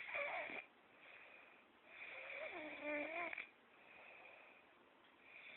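A drunk person snoring in heavy sleep, with snores about every three seconds: one ends just after the start, a longer one with a wavering tone comes about two seconds in, and the next begins near the end, with quieter breathing between.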